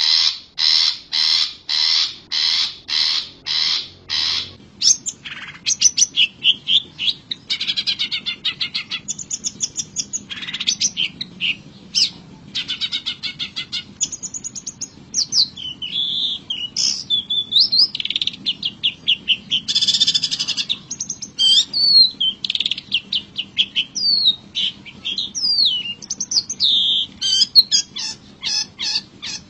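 Long-tailed shrike (cendet) calling: for about four seconds it gives harsh notes repeated at about two a second, then breaks into a varied run of chirps, whistled slurs and quick trills.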